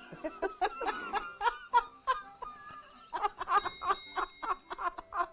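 Men laughing heartily in a run of quick 'ha-ha-ha' bursts.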